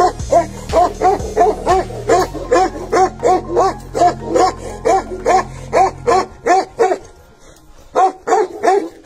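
Tibetan mastiff barking in a fast, steady run of about three barks a second, then a short pause and a few more barks near the end. Low background music plays under the barking and drops out about two-thirds of the way through.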